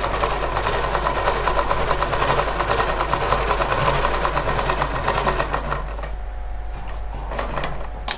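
Ralson zigzag sewing machine running a test seam at a rapid, even stitching rhythm after its bobbin case and hook have been adjusted. It stops about six seconds in, and a few sharp clicks follow near the end as the cloth is handled.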